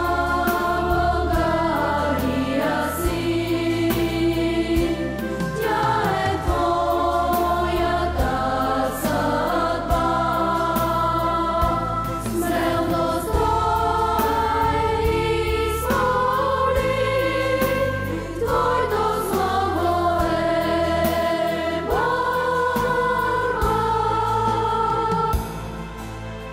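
School hymn sung by a girls' vocal group joined by two women teachers, with held notes over a steady instrumental accompaniment. The singing drops away about a second before the end, leaving quieter accompaniment.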